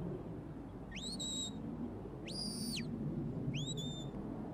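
A sheepdog handler's whistle commands to a working sheepdog: three high whistle notes about a second apart. Each sweeps up and holds, and the middle one also drops away at its end.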